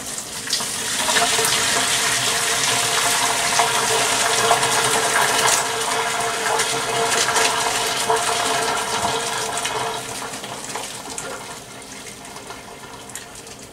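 Pot of cooked farfalle and its hot cooking water poured out into the sink to drain: a steady gushing rush of water that builds about a second in and tapers off over the last few seconds.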